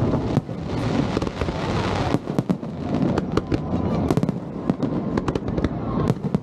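Aerial firework shells bursting in quick succession: many sharp bangs, several a second, over a continuous low rumble.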